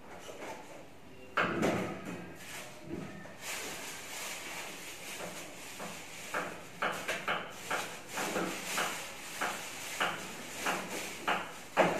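Handling noise from leafy greens and a plastic bag: a knock about a second and a half in, then rustling, and in the second half short, irregular crinkles and crackles, one or two a second.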